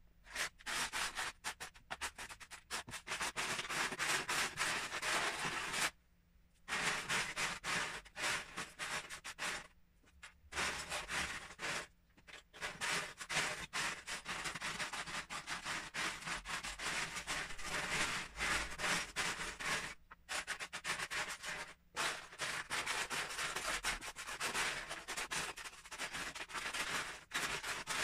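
Loose LEGO bricks clattering as hands rake and sift through a pile of them in a plastic storage tub: a dense stream of small plastic clicks and rattles, with a few brief pauses.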